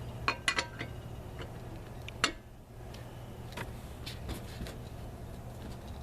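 Lug wrench clinking on the wheel's lug nuts as they are checked and tightened: scattered sharp metal clicks, the sharpest about two seconds in, over a steady low hum.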